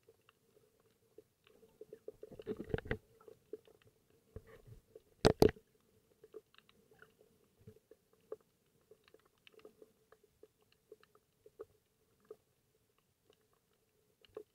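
Underwater sound picked up by a submerged camera: scattered sharp clicks and crackles over a faint steady hum, with a burst of crackling about two to three seconds in and one loud knock a little after five seconds.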